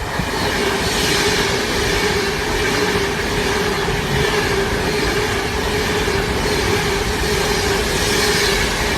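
Train running on rails: a steady rumble with a held squealing tone over it.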